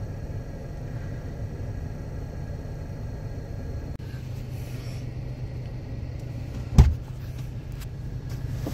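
A van's engine idling, heard from inside the cabin as a steady low hum. One sharp knock comes about seven seconds in.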